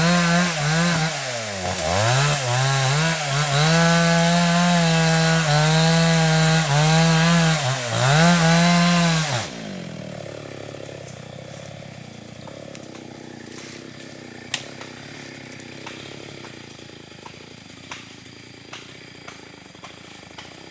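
Chainsaw running at high revs cutting wood, its pitch dipping several times as it bogs down in the cut. About halfway through it winds down and stops, leaving only a faint background with a few light clicks.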